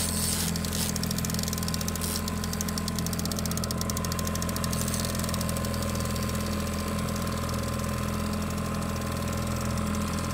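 Outboard motor idling steadily on a fishing boat, with a rapid fine ticking over it for most of the stretch.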